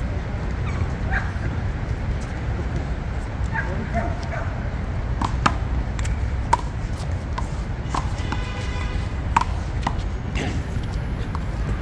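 Several sharp smacks of a handball being hit by hand and striking the concrete wall during a rally, over a steady low rumble of background noise.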